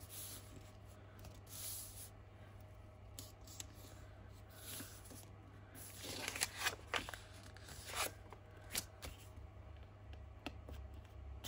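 Brown kraft paper rustling as hands smooth and press a glued strip flat, a run of soft swishes with a cluster of louder ones about six to eight seconds in.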